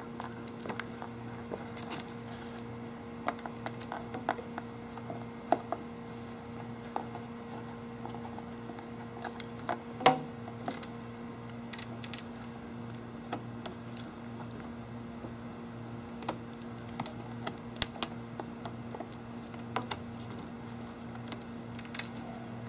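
Scattered light clicks and taps of hands fitting bungee ball ties onto a PVC pipe target stand, with one louder knock about ten seconds in, over a steady low hum.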